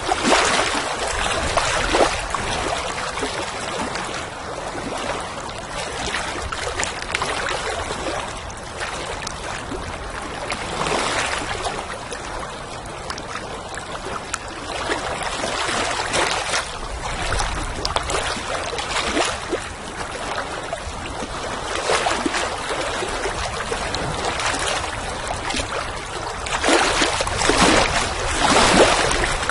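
Water lapping and splashing in irregular small surges every few seconds, over a steady wind rumble.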